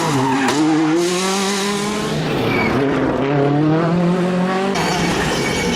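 Rally car heard from onboard at speed: the engine revs up and its pitch drops back at each gear change, several times over, with some tyre squeal. The sound changes abruptly near the end.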